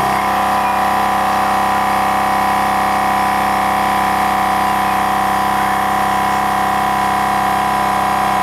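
Milwaukee M18 Fuel 2-gallon cordless air compressor running steadily, its motor-driven pump refilling the tank as the tank's air is drawn off into a flat truck tire.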